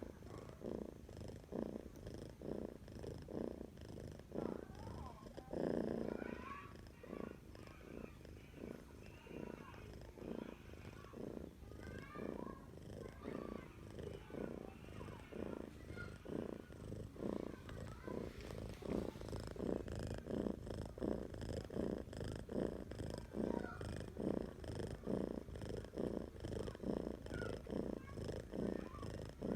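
Domestic cat purring while asleep, a low rumble that pulses evenly about twice a second as it breathes in and out, swelling briefly about six seconds in.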